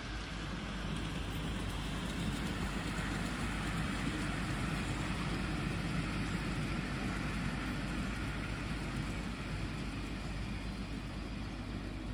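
Miniature ride-on railway train running on its track: a steady rumble and hiss that grows a little louder in the middle and eases off near the end.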